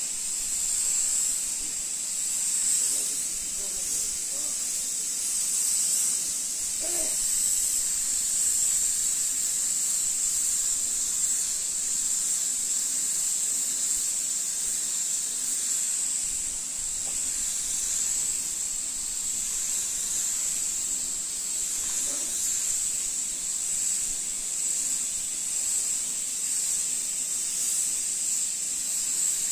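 Gravity-feed automotive spray gun hissing steadily with compressed air as it lays metallic paint onto a car bonnet.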